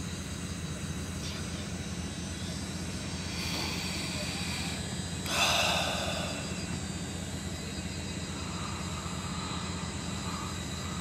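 Steady low hum inside a parked car's cabin, with a brief rushing noise about five seconds in.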